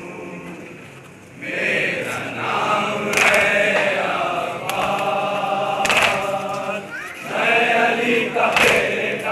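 A group of men chanting a noha in chorus. The chant jumps much louder about a second and a half in, and sharp slaps of hands beating on chests (matam) cut through it several times.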